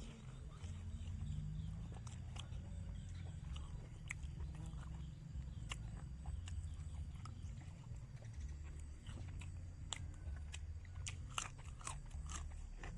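A person chewing and biting food close to the microphone, with irregular small crunches and mouth clicks.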